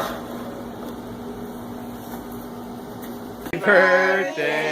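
Steady room hum, then about three and a half seconds in it cuts suddenly to a child singing held notes.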